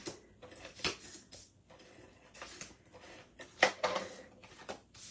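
Sheets of cardstock being handled on a tabletop: several short rustles and taps as card pieces are picked up and slid across the surface, the loudest about three and a half seconds in.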